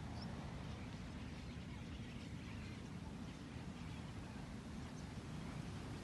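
Faint, continuous chatter of a large flock of birds calling together in flight, many small chirps overlapping, over a steady low rumble.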